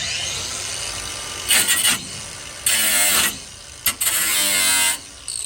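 Angle grinder with a cut-off wheel spinning with a steady high whine, then biting into rusty car-body sheet metal in three loud bursts, each half a second to a second long.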